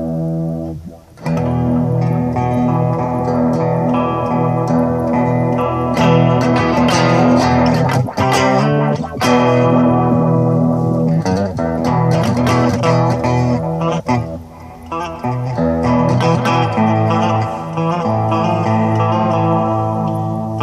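Electric guitar played through a Line 6 Spider IV 15 amp: loud chords left to ring, with a short break about a second in and another near the middle.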